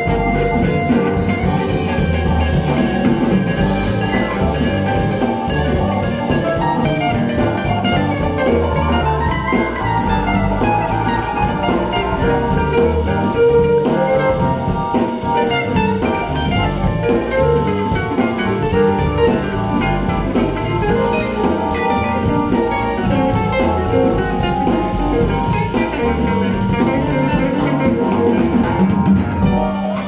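Band music with a drum kit, played back through a pair of KEF LS50 Black Edition bookshelf speakers and picked up in the room.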